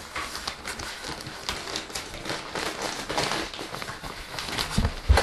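Plastic packaging crinkling and rustling as a backpack is handled in its wrapper, with a couple of dull thumps near the end.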